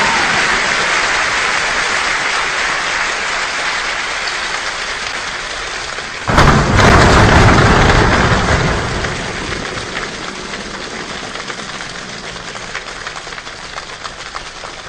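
Large choir imitating a rainstorm with body percussion: a dense hiss of rain that fades, a sudden louder thunder-like surge about six seconds in lasting two seconds, then dying away into a scattered patter of drops.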